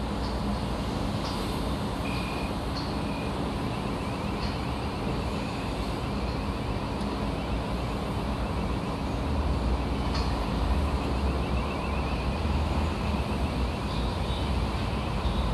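Construction-site ambience: a steady rumble of engines and traffic with short high clinks now and then. The low rumble swells about two-thirds of the way through.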